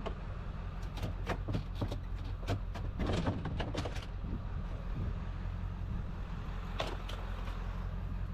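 Knocks and clatters of items being pulled out of a refrigerator and dropped, a quick run of them in the first few seconds and one more near the end, over a steady low hum.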